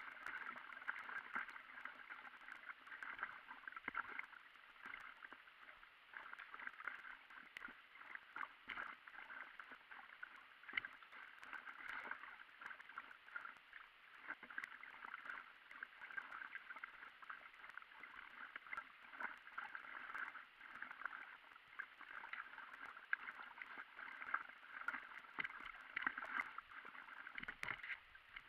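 Water gurgling and splashing at the nose of an inflatable stand-up paddleboard as it is paddled along a river, with paddle strokes dipping in. The audio plays sped up, so the sound is a dense, continuous chatter of small splashes.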